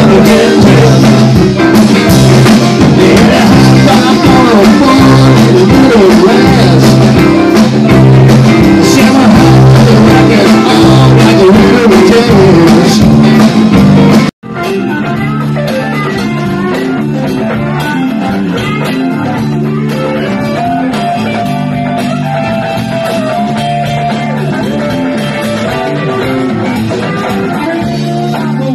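Live band playing a blues-rock song: a man singing into a microphone over electric guitar, keyboard and drums. A sudden break about halfway through, after which the music is quieter and more muffled.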